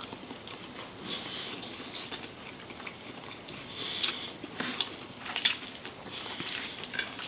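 Chewing and biting into chicken wings: soft mouth noises with a few sharper crunches about four to five and a half seconds in.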